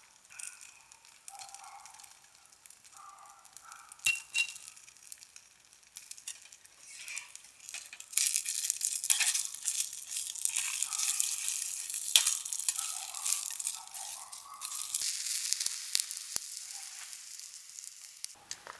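Food sizzling in a hot pan. The loud crackling sizzle starts suddenly about halfway through, with a few clinks before it.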